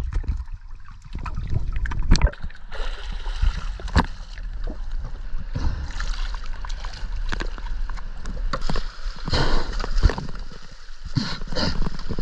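Sea water splashing around a diver in a wetsuit at the surface, with scattered sharp knocks and clicks.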